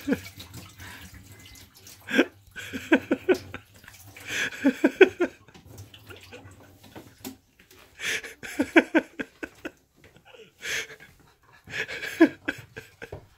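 An elderly woman laughing hard in four or five fits of rapid, pulsing 'ha-ha' sounds, with wheezy gasping breaths drawn in between. Water runs into the kitchen sink through roughly the first half.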